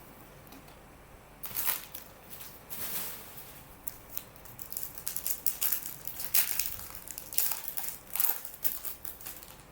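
Trading-card pack wrapper being crinkled and torn open by hand: a string of sharp crackles that starts about a second and a half in.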